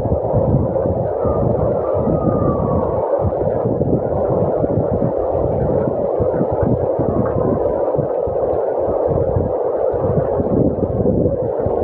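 Heavy rain with strong, gusting wind, the wind buffeting the microphone in constant low rumbles. A faint wavering whistle rises and falls about one to three seconds in.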